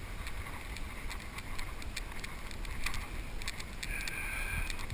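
Steady low rumbling outdoor background noise with faint scattered clicks, like wind and handling on the microphone.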